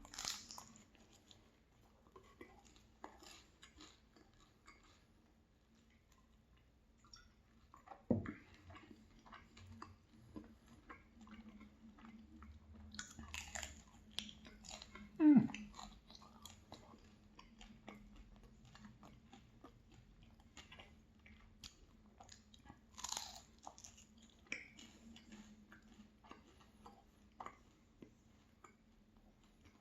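Close-up chewing and crunching of a flaky apple cherry pastry, with many small crunches and mouth clicks and two louder low thumps, about eight and fifteen seconds in. A faint steady hum runs underneath.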